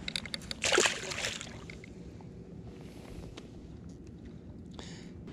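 A largemouth bass splashing once as it is dropped back into the water beside the boat, about a second in, with a few small clicks just before it.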